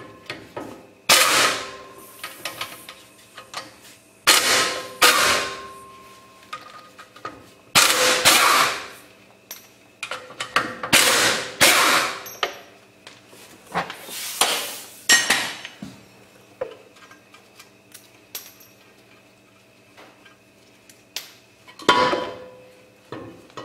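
Hand tools working the bolts of a truck axle's drum-brake backing plate: a series of short metallic clanks and scrapes, some in quick pairs, with a quieter stretch before one last clank near the end.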